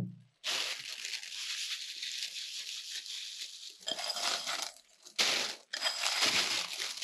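A plastic oven bag crinkling and rustling as popped popcorn is tipped into it from a glass bowl: one long rustle, then several shorter bursts.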